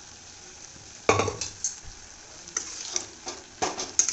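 A spoon stirring boiled chickpeas into thick masala gravy in a metal kadai, scraping and knocking against the pan over a faint sizzle, with one loud knock about a second in and more scraping and clattering near the end.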